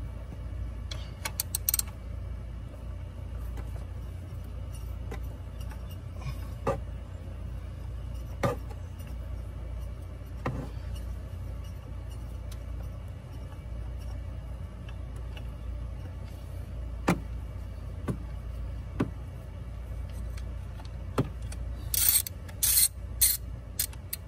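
Scattered sharp metallic clicks and clinks of hand tools working a bracket screw loose on a truck engine, with a quick cluster of clicks near the end, over a steady low background rumble.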